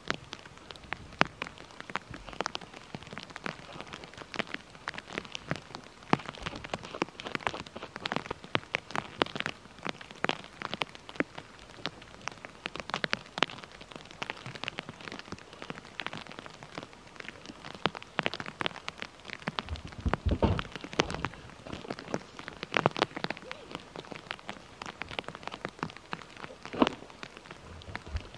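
Snow being brushed and knocked off a snow-covered pickup truck: an irregular crackling patter of falling and scraped snow, with footsteps crunching in deep snow. A few heavier thumps come about twenty seconds in.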